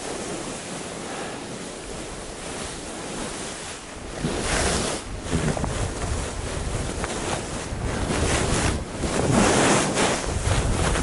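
Wind rushing over the microphone of a skier descending a groomed piste, with swells of skis hissing and scraping over the snow through turns, loudest about four seconds in and again near the end.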